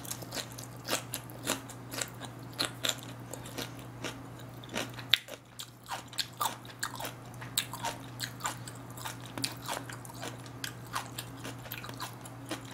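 Close-miked chewing of a mouthful of smoked duck: wet, crunchy mouth clicks coming irregularly, two or three a second. A thin steady low hum runs underneath.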